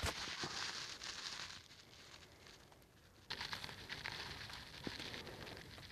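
Faint rustling and light crackling with a few soft clicks, dropping to near silence for about a second and a half in the middle before resuming.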